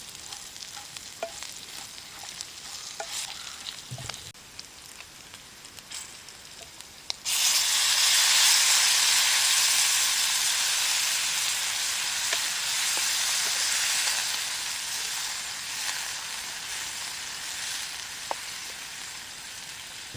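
Meat frying in hot oil: a soft sizzle with scattered small pops, then about seven seconds in a sudden, much louder sizzle that slowly dies down.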